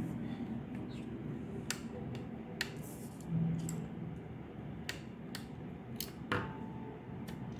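Scattered light clicks and taps of a screwdriver and small screws on a laptop's plastic and metal parts while the cooling fan is unscrewed and lifted out, with a sharper click near the end.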